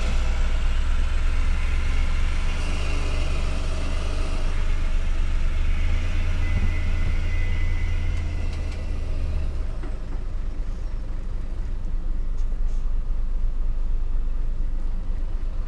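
Dump truck's diesel engine heard from inside the cab, a heavy steady rumble that drops to a quieter running level about ten seconds in.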